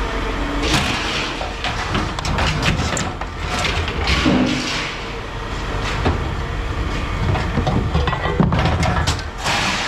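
Scrap metal clanking and banging in irregular knocks as it is unloaded, over a steady low engine rumble.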